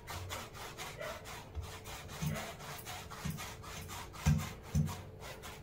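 Hands kneading and rolling soft semolina dough on a steel plate: quick repeated rubbing, squishing strokes, with a few dull knocks, the loudest about four seconds in.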